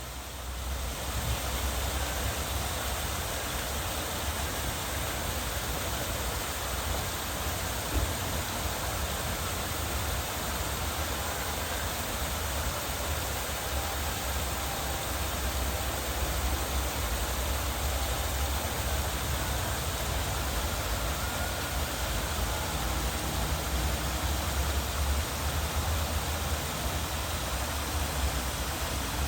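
Water pouring down a landscaped garden waterfall: a steady rushing noise with a low rumble underneath.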